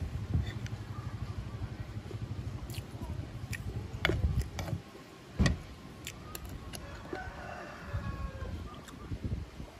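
A motor engine runs nearby with a low, fast-pulsing throb that fades away about halfway through. A few sharp clicks of a metal spoon against a plastic plate come in the middle.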